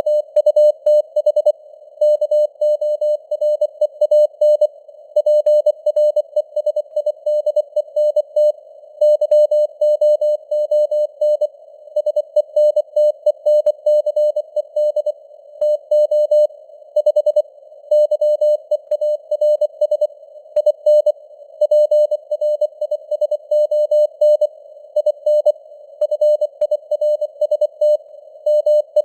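Morse code sent as a single mid-pitched keyed tone at 24 words per minute, a fast stream of dots and dashes. A narrow band of simulated radio hiss sits around the tone, and the signal strength fades up and down (QSB).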